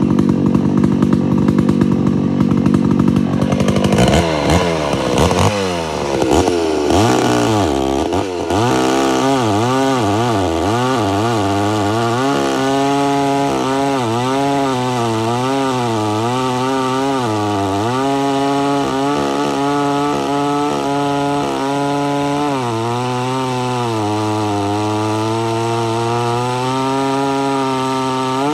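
Homelite Super XL-925 82cc two-stroke chainsaw, its governor blocked off. It runs steadily at first, then revs up and down sharply about four seconds in. From about eight seconds on it cuts through a large log under load, the engine pitch wavering up and down through the cut.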